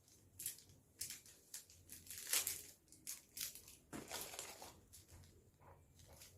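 Plastic packaging crinkling and rustling in a string of short bursts as items are handled, loudest about two and a half seconds in and tapering off after about five seconds.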